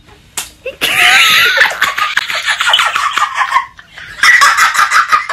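A single sharp smack of a powdered hand on a face, then loud, high-pitched shrieking laughter from two women, which breaks off briefly and bursts out again near the end.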